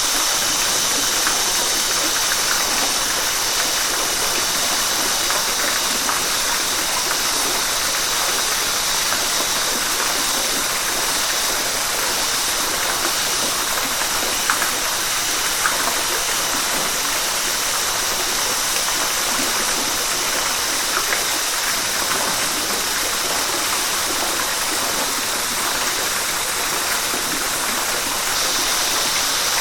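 A river's water rushing steadily: a dense, even hiss with small splashes flicking through it.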